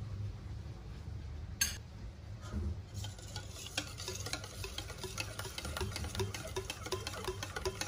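A utensil stirring ingredients in a mixing bowl. There is one sharp tap about one and a half seconds in; from about three seconds in come quick, steady clinking strokes, roughly three a second.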